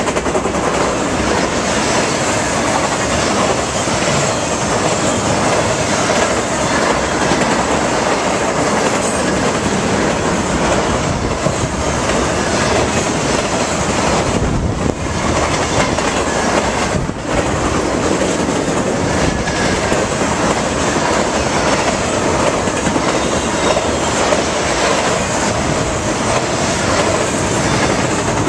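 Intermodal freight train cars, trailer flatcars and double-stack container well cars, rolling past: steel wheels running on the rails in a loud, steady rumble and rattle. Two brief dips in loudness come about halfway through.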